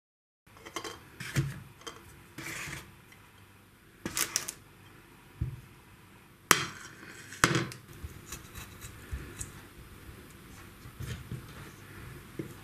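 Scattered knocks and clinks of kitchenware being handled: a china plate, a chef's knife and tomatoes set down on a wooden cutting board and counter. The sharpest knocks come about six and a half and seven and a half seconds in.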